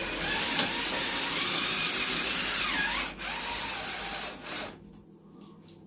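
Power drill driving a self-tapping screw into the ceiling, its motor running with a wavering whine that dips in pitch and stops briefly about three seconds in, then runs again and stops near the end.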